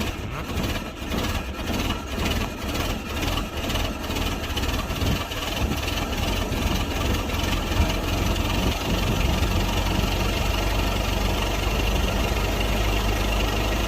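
Ford Model T four-cylinder engine chugging with an uneven, pulsing beat as it tries to start, then settling into a steadier idle about halfway through.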